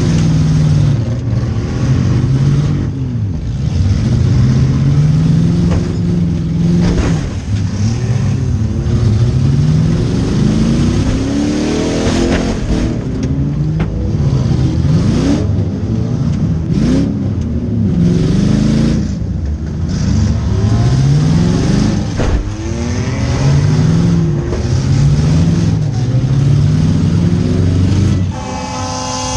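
Demolition derby car engine revving up and falling back over and over as the car accelerates and backs around, with a few sharp bangs of impacts. A steady horn starts sounding near the end.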